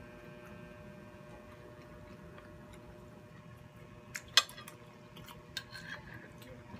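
A metal spoon clicks sharply against a ceramic plate about four seconds in, followed by a few lighter clicks, over a faint steady hum.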